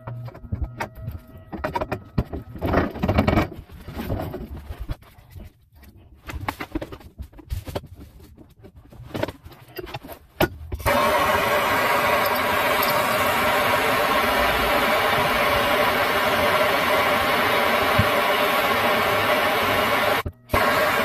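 Clicks and scrapes as a copper tee fitting is worked onto copper pipe by hand. About halfway through, a handheld gas soldering torch lights and burns with a loud, steady hiss, heating the joint for soldering. The hiss breaks off briefly near the end.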